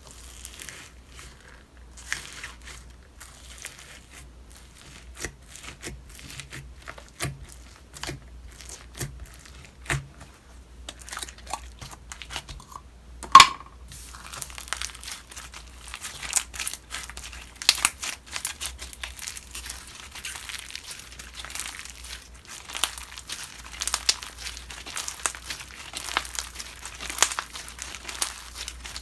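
Homemade slime being worked by hand, giving many small crackling and popping clicks. The clicks grow denser and louder in the second half, with one sharp, loud pop about 13 seconds in.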